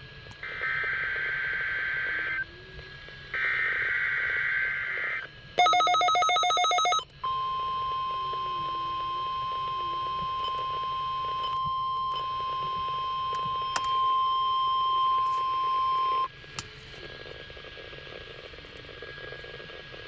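NOAA Weather Radio weekly test alarm heard off a weather radio. It starts with two buzzy SAME data bursts. About five and a half seconds in there is a loud, harsh beep lasting a second and a half. Then the steady 1050 Hz warning alarm tone holds for about nine seconds, cuts off suddenly, and leaves radio hiss.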